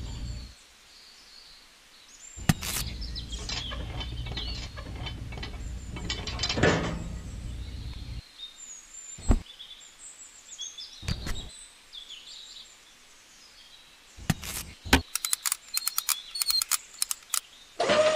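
Small plastic and metal parts clicking and rattling as a miniature cultivator is pinned onto a toy tractor's spring-loaded hitch, with a quick run of clicks a few seconds before the end. Birds chirp faintly in the background. Right at the end, the model tractor's small electric motor starts with a steady whine.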